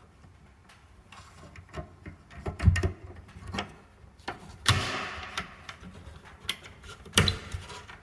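Plastic clicks and knocks from a smoke alarm being handled and fitted back onto its ceiling mounting base. A run of small ticks is broken by three louder knocks: one under a third of the way in, one just past halfway, and one near the end.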